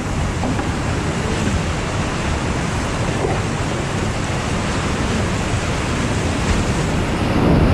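Whitewater rapids rushing steadily around a kayak in the middle of the rapid, close and loud, growing louder near the end.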